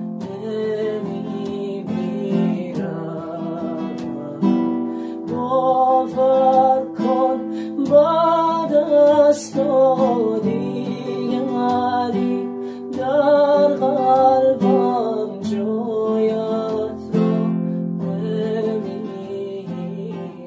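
A man sings a Persian song to his own acoustic guitar, strumming chords throughout, with the voice's melody rising and falling most strongly through the middle.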